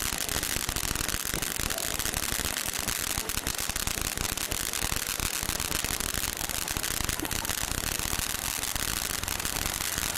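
Brothers Buzz Saw Fountain, a ground firework fountain, burning steadily: a continuous hiss with dense, rapid crackling as it sprays sparks and stars.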